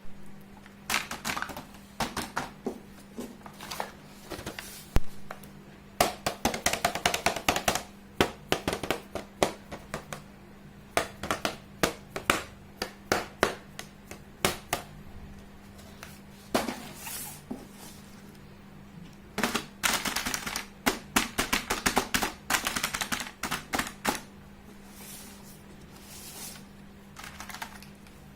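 Small plastic toy pieces being handled and unboxed, with many irregular clicks and taps coming in quick clusters, over a steady low hum.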